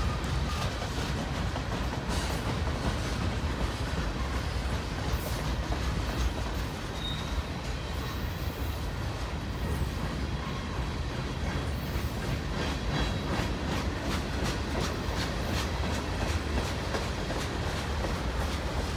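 Freight cars of a long manifest train (tank cars, covered hoppers and boxcars) rolling past: a steady rumble of steel wheels on rail with clickety-clack over the rail joints, and a few brief faint wheel squeals.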